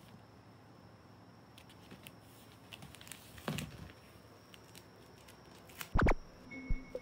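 A black cat and a tabby kitten tussling: faint scuffling of paws on the floor, a short hissing cry from a cat about halfway through, then loud thumps near the end.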